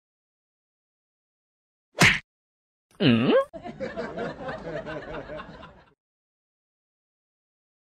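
A short sharp sound about two seconds in, then a brief voice-like sliding call, then a person chuckling and giggling for about two seconds.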